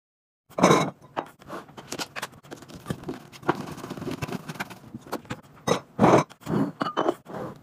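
Laundry detergent pods poured from a plastic tub into a large glass jar, tumbling in with a burst of knocks and rattles. Near the end, the jar's glass lid is set on with a few knocks of glass on glass.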